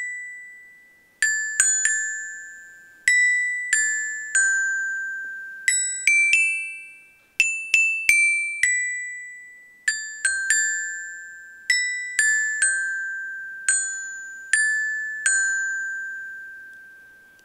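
A small child's glockenspiel struck with mallets, playing a slow melody of single high notes, each left to ring and fade. The tune climbs to its highest notes about six to eight seconds in, then falls back.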